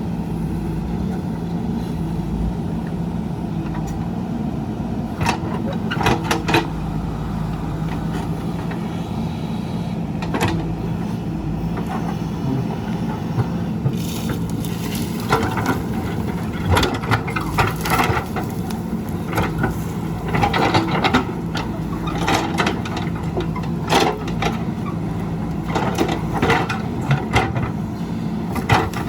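Backhoe loader's diesel engine running steadily under work, with repeated knocks and clatter from digging, more frequent in the second half.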